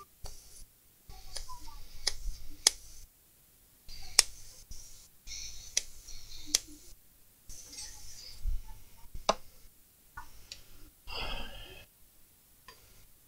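Sharp metallic clicks and small clinks of pliers working the metal nozzle of a hot air rework gun, the nozzle loose on the handpiece with its retaining screw missing. The clicks are spaced irregularly, about five louder ones, with a short breathy rustle near the end.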